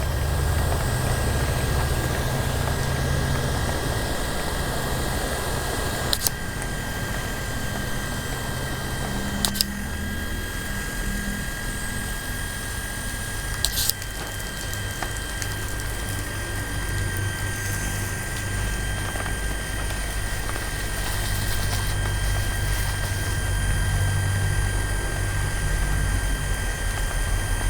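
A 1/2 HP Mahalakshmi self-priming electric pump running steadily with a constant whine, driving a water jet from a spray gun. Three short clicks come about a third of the way in, near the middle, and about halfway.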